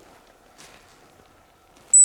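Quiet forest background with a faint brief rustle near the middle; right at the end a loud, thin, high whistle starts abruptly, the opening note of a hazel grouse call blown on a decoy whistle.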